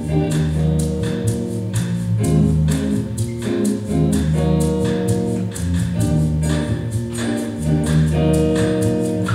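Band music with guitar and bass over a steady beat.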